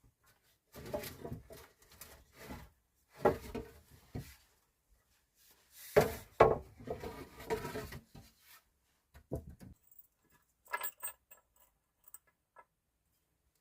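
Irregular knocks, clicks and rustling handling noises in short spells with gaps between, the loudest spell about halfway through, then a few sharp small clicks near the end.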